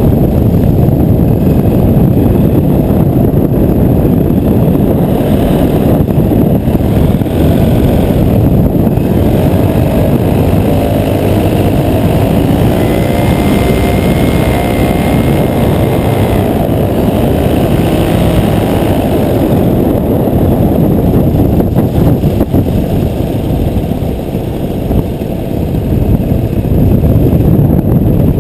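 Paramotor engine and propeller running in flight, mixed with heavy wind buffeting on the microphone. The engine note shifts briefly about halfway through, and the sound dips for a moment near the end.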